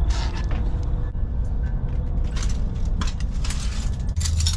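Broken glass being cleared out of an overturned chicken coop: several short bursts of clinking and rattling over a steady low rumble.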